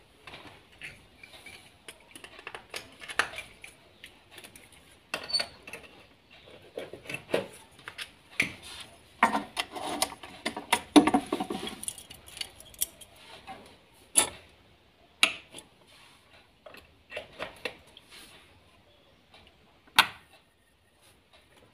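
Small plastic and metal parts of an electrical switch and bulb holder being handled and fitted together: irregular rattling and clattering with scattered sharp clicks, busiest in the middle, then a few single clicks near the end.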